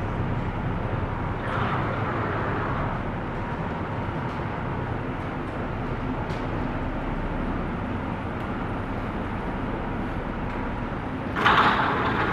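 Steady low rumble of a car ferry's engines and machinery, heard from inside the passenger deck. A brief louder rush of noise comes near the end.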